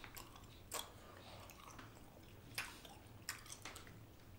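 Faint chewing of soft, chewy fruit candies, with a few brief wet mouth clicks and smacks.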